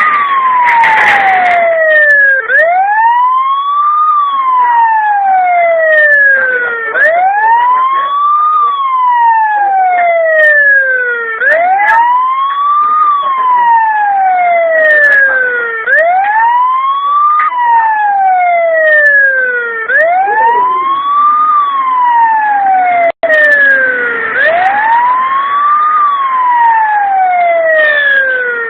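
Loud electronic alarm siren of a wireless 360-degree security camera, set off by its motion detection. It is a wail that sweeps quickly up in pitch and then slowly down, repeating about every four and a half seconds.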